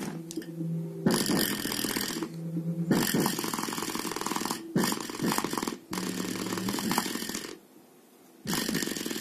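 A bass shaker (tactile transducer), driven by a 350 W AIYIMA amplifier board, plays music as a buzzing, rattling vibration through the board it sits on. The sound cuts out and comes back several times, with the longest silence about three quarters of the way through.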